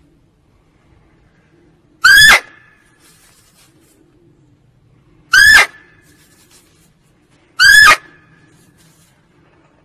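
Female muntjac (barking deer) calling: three short, high-pitched barks a few seconds apart, each rising and then falling in pitch.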